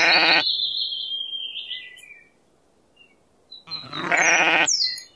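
Two bleats: one ending just as the sound begins and a second, about a second long, starting about three and a half seconds in, with faint bird chirps between them.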